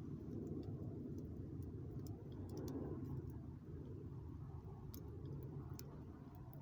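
Small wood campfire burning: a steady low rumble with scattered faint crackles.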